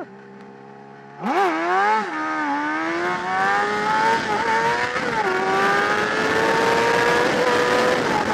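Honda CBR600RR's inline-four engine opening up hard about a second in from a quiet, steady run. It revs up through the gears, dropping in pitch at an upshift about a second later and at another near the middle, and climbs steadily between shifts. Wind rush runs underneath.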